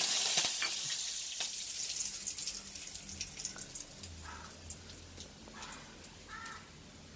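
Hot oil sizzling in a kadai for the dal's tempering, loud at first and fading away over several seconds, with scattered crackles.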